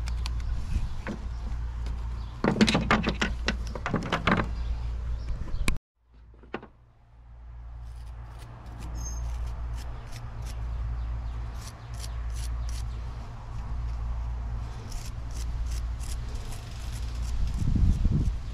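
Small handheld wire brush scrubbing a small steel screw in bursts of short strokes, heard as quick scraping ticks, over a steady low hum.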